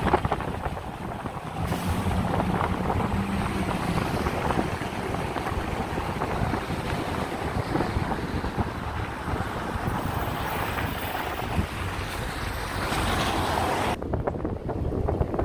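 Steady road and wind noise of a car driving on snowy roads, with the higher hiss dropping away suddenly near the end.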